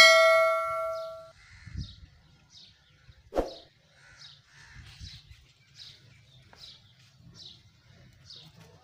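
A bright chime-like ding at the start, ringing out and fading over about a second, from the on-screen subscribe-button animation. After it, a small bird chirps over and over, about twice a second.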